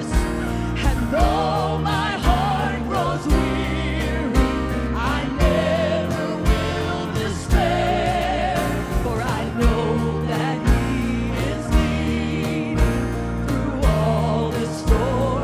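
Live gospel worship song: vocalists singing with vibrato over a band of piano, guitar and bass, with a steady beat about once a second.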